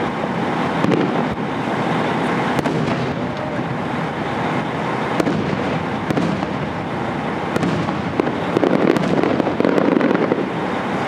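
Fireworks going off in a dense, continuous barrage of booms and crackling, with sharp pops coming thicker in the last few seconds.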